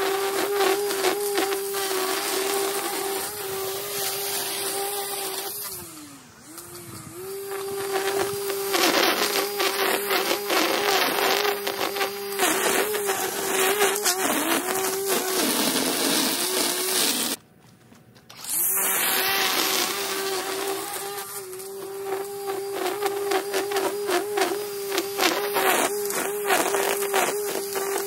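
Battery-powered string trimmer running with a steady high whine, its line crackling through grass along the pavers. The motor winds down and spins back up about six seconds in, then cuts out for about a second roughly two-thirds of the way through before starting again.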